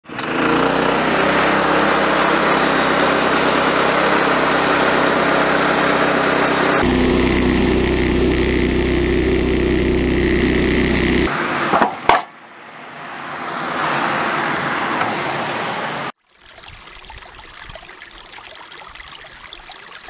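Woodland Mills HM126 band sawmill running, its gasoline engine driving the blade through a log, the tone shifting about seven seconds in. It cuts off after about eleven seconds, followed by a sharp knock and then the steady rush of a shallow stream.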